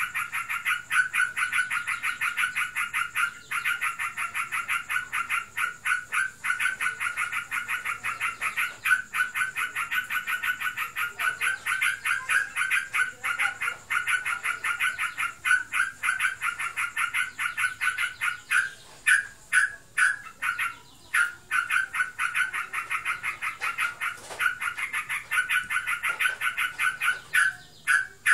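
Yellow-vented bulbul (trucukan) chattering in a long, unbroken run of fast repeated notes, many to the second, pausing briefly about two-thirds of the way through. This is the rapid nonstop "ngebren" delivery that the keeper cannot tell apart as breeding excitement or simply full song.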